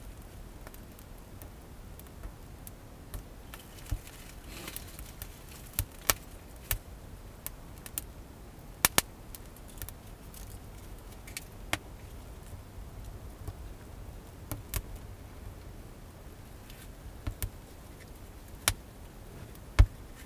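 Dry kindling and a small wood fire crackling and snapping in irregular sharp cracks as thin sticks are fed into the flames, with a loud close pair of snaps about halfway through and another sharp crack near the end.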